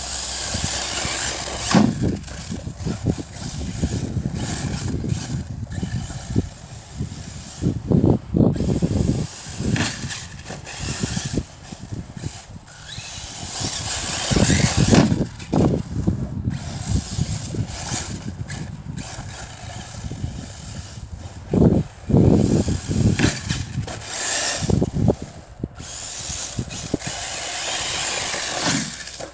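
Arrma Typhon 1/8-scale RC buggy running on 6S: its brushless electric motor whines high in repeated surges as it speeds up and slows, with gear chatter from the drivetrain. Several louder low thuds come at irregular moments.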